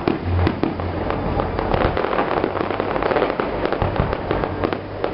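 Fireworks display: dense, continuous crackling with many sharp bangs.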